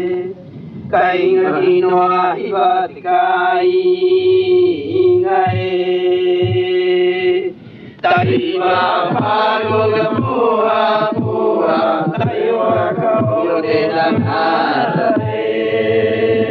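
Rapa Nui voices chanting a traditional sung narrative. Long held notes over a steady sustained tone fill the first half. After a brief break about halfway, a fuller, busier stretch of several voices follows.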